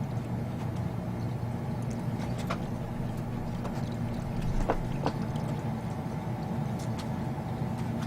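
A steady low mechanical hum with scattered faint clicks and taps, and a slightly louder knock about four and a half seconds in.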